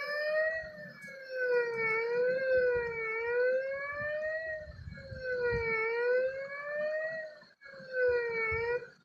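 A siren-like wail, its pitch rising and falling slowly over a couple of seconds at a time. It starts abruptly, breaks off briefly near the end, then resumes for a short falling wail.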